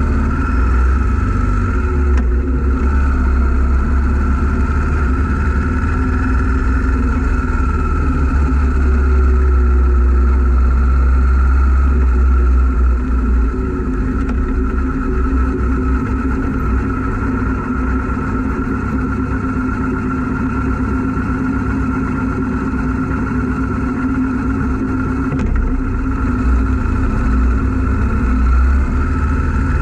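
A 2012 Yamaha 950 cruiser's V-twin engine running steadily while riding at road speed, heard close up from the crash bar with a heavy low rumble. It swells slightly for a few seconds partway through, then settles back.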